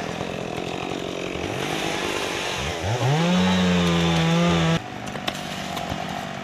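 Two-stroke chainsaw running low, then revved up to full throttle about two and a half seconds in and held there for about two seconds before the sound drops off suddenly to a quieter background.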